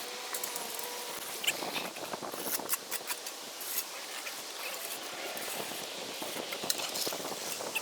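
Irregular scraping and clicking of hand finishing tools, such as a trowel or edger, worked over wet concrete.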